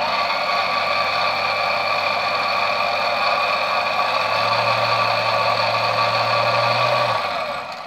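Small belt-driven lathe running steadily with a hand file held against the back of a spinning model railway wheel: a steady whine with a scraping hiss, a low hum growing stronger about halfway through, then the lathe switched off and running down about seven seconds in.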